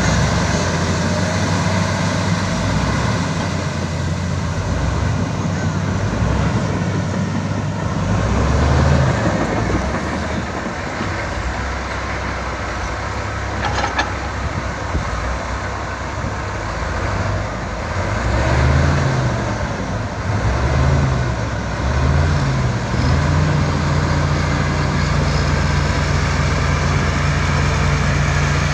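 Heavy diesel earthmoving machinery (a wheel loader and a bulldozer) working, the engine revving up and falling back several times, then running steady near the end.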